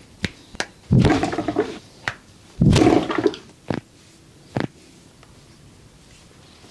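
Several short sharp pops of joints cracking under a massage-style adjustment, among them two longer, louder rushing noises about a second and two and a half seconds in.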